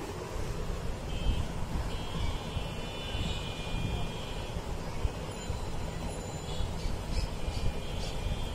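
Steady low rumble of background noise, with faint high-pitched tones coming in twice.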